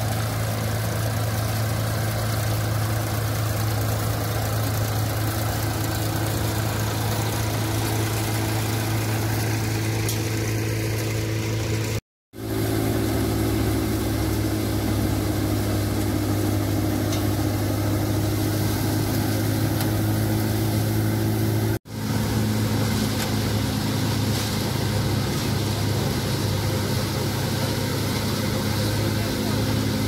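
Tractor-driven NVT thresher running steadily while chickpea plants are fed into it: a steady low tractor engine hum under the thresher's whirring drum. The sound cuts out for a moment twice, about twelve and twenty-two seconds in.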